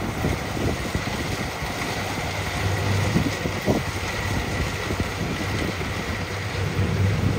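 Kubota DC70 Plus combine harvester's diesel engine running steadily, with wind buffeting the microphone.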